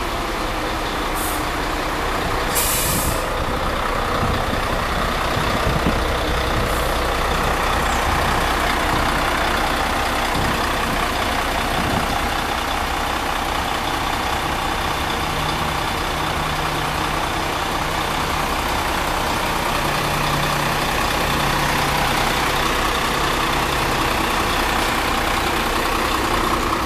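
Volvo-chassis Marcopolo Paradiso double-decker coach, its rear-mounted diesel engine idling steadily, heard from outside the bus. A short hiss of air sounds about three seconds in.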